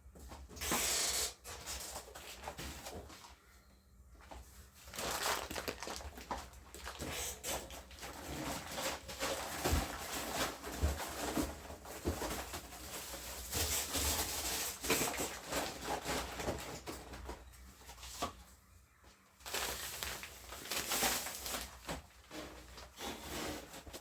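Irregular rustling, clicks and knocks of groceries and containers being handled and set into a refrigerator.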